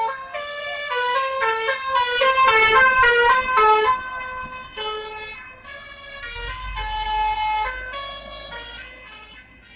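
Bus 'basuri' telolet horn playing a quick melody of short stepping notes, loudest in the first few seconds and fading toward the end, with a low engine rumble passing around six seconds in.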